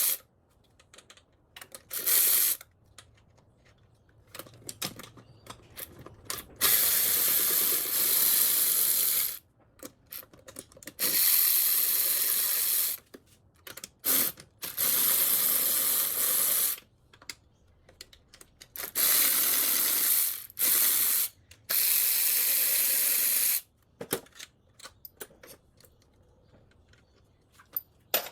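Cordless electric ratchet running in short bursts, about six runs of one to three seconds each, spinning out intake manifold bolts, with small tool clicks between the runs.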